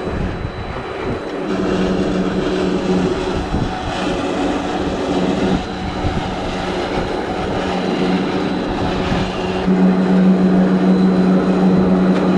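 Boat-lift platform machinery running as it slowly hauls a yacht out of the water: a steady mechanical drone with a strong hum, growing louder about ten seconds in.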